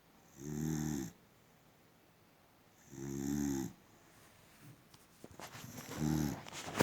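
Boxer dog snoring in its sleep: three snores, each under a second long, about two and a half seconds apart, with a few faint clicks between the last two.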